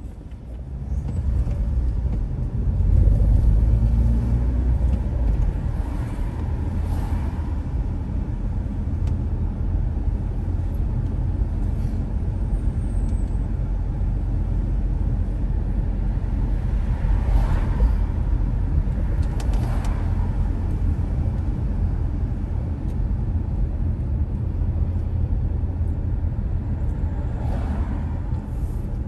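Car being driven through city traffic: a steady low rumble of engine and road noise that swells about three seconds in, with a few brief sharper traffic sounds along the way.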